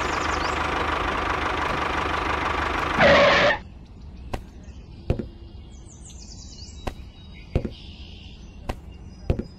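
A tractor engine running steadily and loudly, swelling briefly before it cuts off about three and a half seconds in. After that, a series of light knocks as small toy melons are set down one by one on the table, with faint bird chirps.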